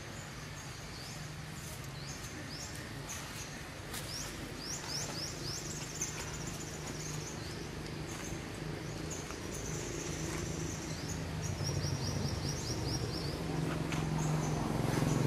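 Outdoor birds chirping: scattered short, high calls and, later, a quick run of repeated high notes, over a steady low hum that grows louder near the end.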